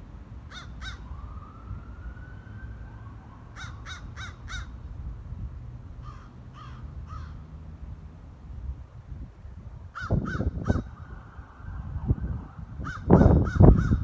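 Crows cawing in short runs of two to five caws, several times over. Under them runs a low rumbling noise on the microphone that swells loudly about ten seconds in and again near the end.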